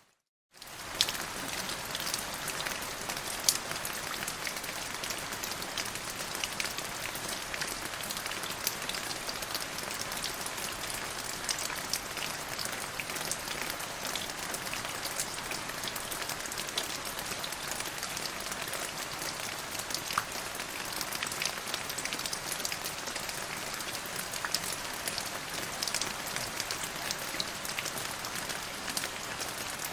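Steady rain falling: an even hiss with many sharp drop ticks. The sound cuts out completely for about half a second at the very start, then resumes at the same level.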